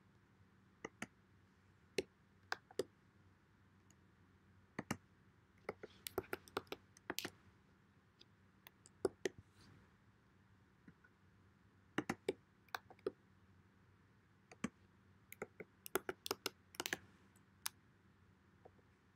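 Typing on a computer keyboard: faint, sharp key clicks, some single and some in quick clusters, with pauses between them.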